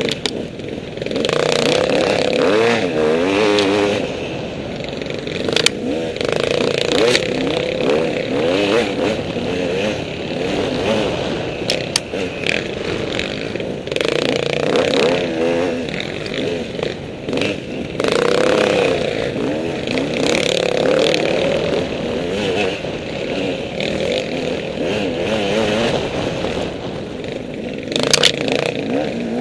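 Enduro dirt bike engine revving up and down constantly over rough terrain, with scattered knocks and clatter from the bike over rocks.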